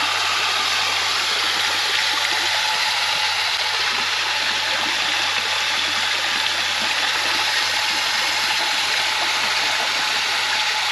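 Pump-fed pond fountain running, water splashing steadily into the pond with an even rush.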